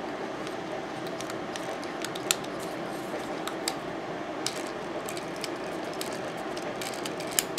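A few sharp light clicks and taps from hands handling a small wooden toy helicopter, over a steady background hiss.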